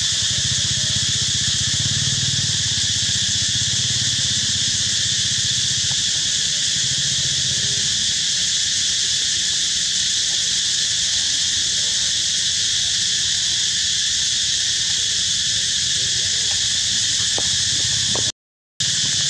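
Steady high-pitched drone of insects, unchanging in level, cutting out for a moment near the end.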